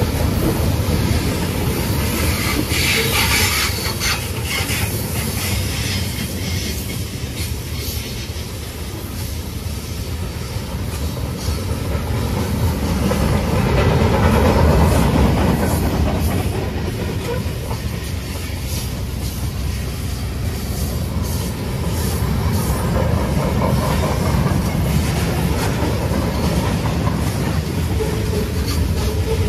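Freight train rolling past close by: a steady rumble of the cars, with the wheels clicking over the rail joints.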